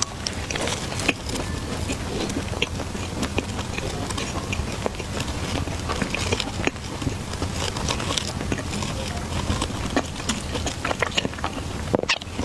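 Close-up eating sounds: chewing with a dense run of small clicks and crackles.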